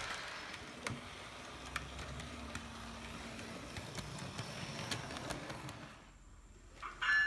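HO scale model train, a BNSF diesel locomotive model, running on the layout track: a steady low motor hum with occasional sharp clicks. About six seconds in, the sound drops almost to quiet for about a second.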